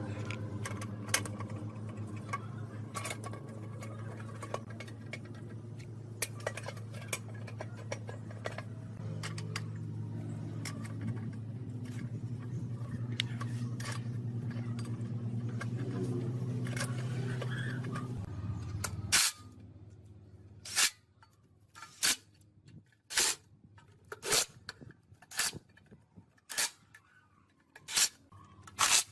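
A machine runs with a steady low hum and scattered clicks, then stops suddenly about two-thirds of the way through. After that come sharp metallic taps about once a second.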